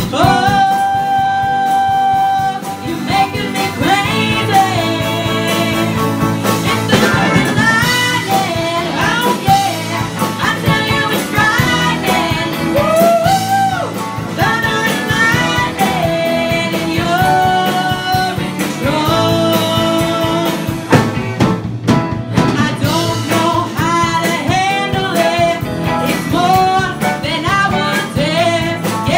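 Live pop-rock band performance: female voices singing the melody over acoustic and electric guitar, keyboard and drums, with a steady beat.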